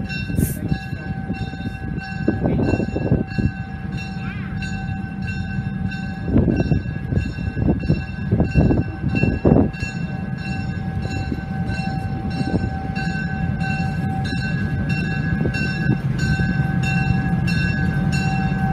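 Diesel locomotive's bell ringing steadily, about two strikes a second, as the locomotive approaches pulling freight cars. Underneath is the low rumble of its diesel engine, growing louder as it nears, with a few louder low rumbling bursts in the middle.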